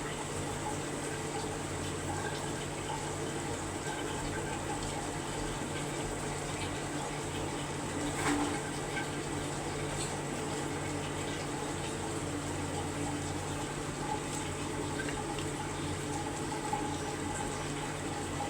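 Chicken curry cooking in a pot on the stove, bubbling and sizzling steadily, with a light clink about 8 seconds in.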